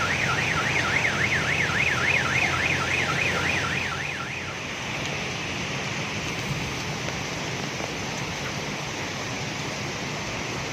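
An electronic alarm warbling rapidly up and down, about four to five times a second, that stops about four and a half seconds in, over a steady rushing background noise.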